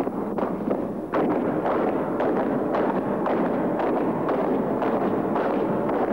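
Battle sound effects: a dense crackle of gunfire and explosions with sharp, irregular shots a few times a second, growing louder about a second in.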